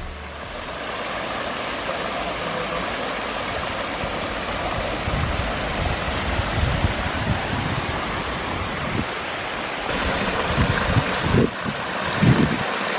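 A pondless waterfall's water splashing and running down over rocks: a steady rushing. From about ten seconds in, wind buffets the microphone with uneven low thumps.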